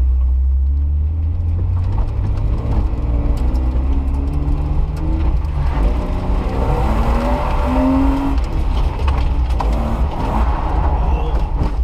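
Car engine running under load as the car drives, with a heavy low rumble; its pitch climbs in steps, rising and dropping back a few times as it speeds up through the gears.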